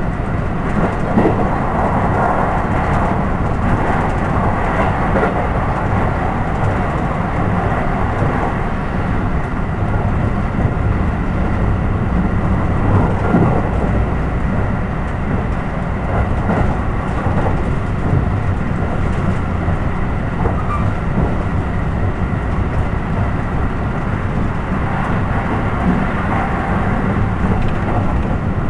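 Steady rumbling running noise of a moving train heard from inside the carriage, with a few faint knocks from the wheels on the rails.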